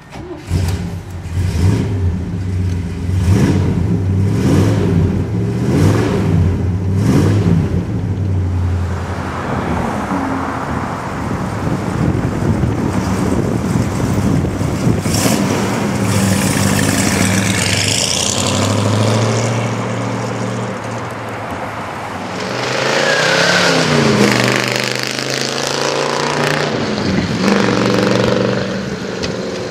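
Chevelle SS 396 big-block V8 revved in a series of quick throttle blips over its idle, then running steadily as it pulls away. Later it accelerates hard, the pitch rising and falling through the gears, with road traffic behind it near the end.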